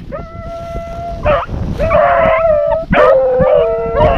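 A pack of rabbit-hunting dogs baying together, several long drawn-out howls overlapping, with more voices joining about two seconds in: the dogs giving voice as they run a rabbit's trail.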